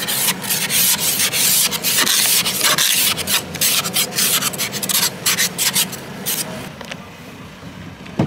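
Hand ice scraper scraping frost off a car windscreen in quick rasping strokes, dying away about six seconds in; a single sharp click near the end as the car door handle is pulled.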